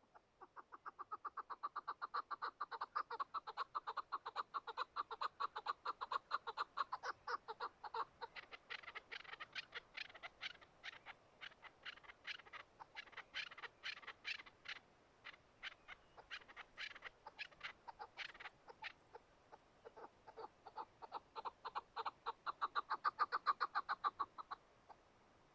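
Chukar partridge calling: a long, rapid run of clucking notes, about five a second. The notes fade somewhat in the middle, swell again near the end and then stop.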